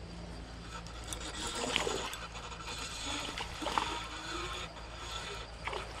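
Small creek water trickling, with three short sharp sounds about two seconds apart.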